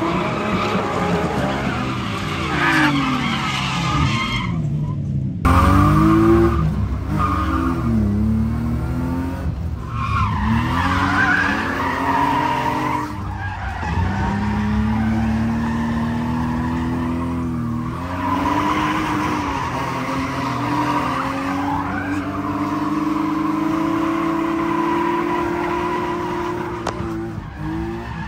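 Drift cars' engines revving up and down hard through slides, with tyres skidding. The sound changes abruptly several times as it cuts between runs, and near the end one engine holds high revs through a long slide.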